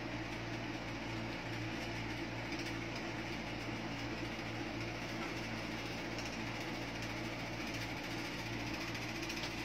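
Electric fan running with a steady hum: a low drone with a few held tones under an even hiss, unchanging throughout.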